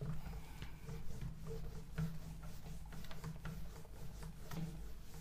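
Whiteboard being wiped clean with a cloth: many short rubbing strokes over a low steady hum.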